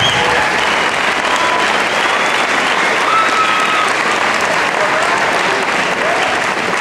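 Large audience applauding steadily in a gymnasium.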